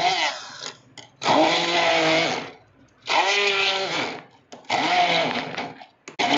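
Stick blender run in short pulses, four bursts of about a second each with brief pauses between, its motor whine settling after each start as the blade chops shallots, chillies, garlic and candlenuts into a spice paste.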